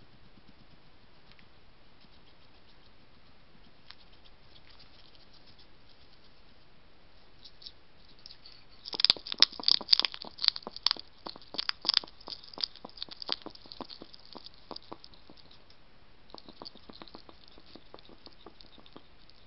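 European hedgehog nosing right up against the trail camera. About nine seconds in, a rapid run of scratchy clicks starts close to the microphone, loud at first and then tapering off, with a fainter run near the end.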